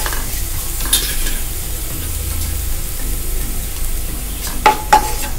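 Neem flowers frying in ghee in a nonstick pan, stirred with a wooden spatula: a steady sizzle and scrape, with a few sharp clicks of the spatula, two of them near the end, over a low steady hum. The flowers are in the last stage of frying, until they change colour.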